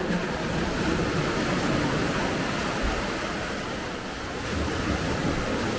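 Sea waves washing onto a beach, a steady rushing hiss that swells and eases, with wind rumbling on the microphone.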